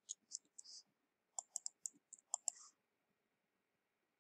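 Faint computer keyboard and mouse clicks. A few light clicks come in the first second, then a quicker run of clicks between about one and a half and two and a half seconds in.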